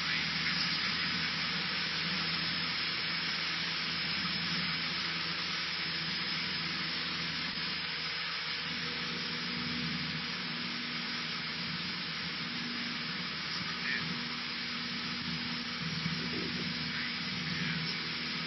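Steady cabin noise of a Cessna 152 in flight: its four-cylinder Lycoming O-235 engine and propeller running steadily under a hiss of airflow. A further low tone joins about halfway through.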